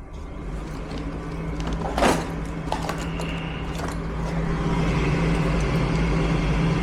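Gas furnace draft inducer motor starting on a call for heat and running with a steady hum that grows louder over the first few seconds. A short knock comes about two seconds in.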